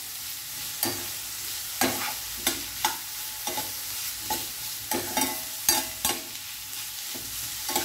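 Chopped onion, green chilli and capsicum sizzling as they fry in a stainless-steel pan. The steady sizzle is broken by irregular sharp scrapes and clinks of the spatula stirring against the pan.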